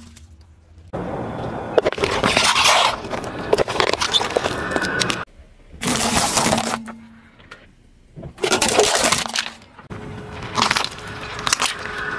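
Car tyre rolling over and crushing small objects, walnuts among them. A series of separate bursts of crunching and cracking, each starting and stopping abruptly.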